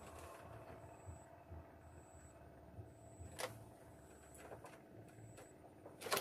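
Quiet open-air ambience with a few short, sharp clicks as a hand grips and handles a fishing rod resting in its holder; the loudest click comes at the very end.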